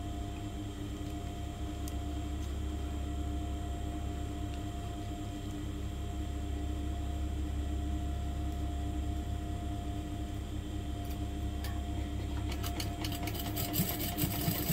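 Electric sewing machine running, stitching fabric steadily, with clicking and rustling of handling near the end.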